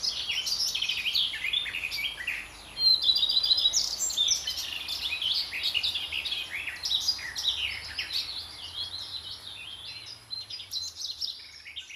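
Several songbirds singing at once, a dense chorus of quick chirps and trills that overlap throughout, growing fainter near the end.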